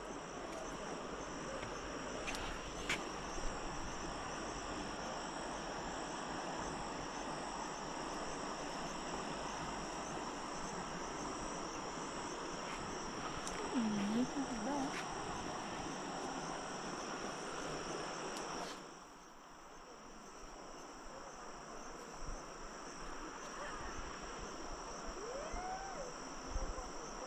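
Insects chirring steadily in a high-pitched, unbroken drone, over an even background hiss that turns quieter about two-thirds of the way through, with a few faint clicks.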